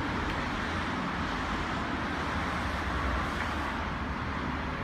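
Mitsubishi exhaust fan running, a steady rush of air with a low rumble beneath.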